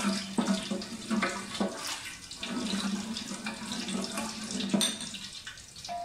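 Whole spices sizzling in hot ghee and oil in a large aluminium pot as a wooden spoon stirs them, with a few sharp knocks of the spoon. A steady low hum runs underneath, breaking off briefly a few times.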